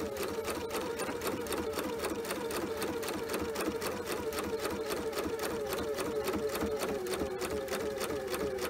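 Pfaff sewing machine stitching steadily through the layers of a quilt: a fast, even clatter of needle strokes over the hum of its motor, held at one speed throughout.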